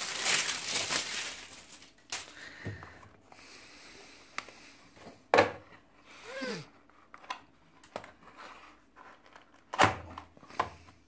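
Thin plastic shrink-wrap crinkling as it is pulled off a cardboard phone box, followed by scattered taps and knocks of hands handling the box.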